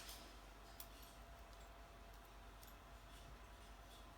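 Near silence, with a few faint clicks as paper pieces and foam tape are handled, the sharpest right at the start and another just under a second in.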